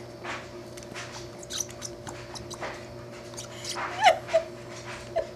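A baby's squeaky ball toy squeaking: one sharp falling squeak about four seconds in and a shorter one just after five seconds, after a few seconds of soft clicks.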